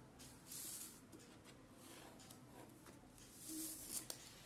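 Faint scratching of a ballpoint pen drawing lines on paper along a clear plastic ruler, with a light tick or two near the end.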